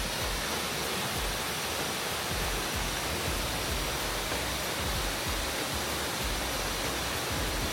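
Steady rushing roar of the Leke Leke waterfall's falling water, with irregular low rumbles underneath.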